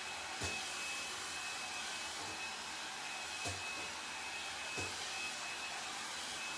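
L'ange Le Volume hot-air brush running steadily as it is drawn through hair: an even blowing rush with a thin high whine. A few faint knocks come from the brush being handled.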